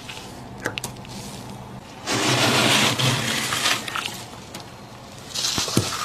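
Thick freezer frost crunching and scraping: a long loud crunch begins about two seconds in, and another starts near the end with sharp crackles.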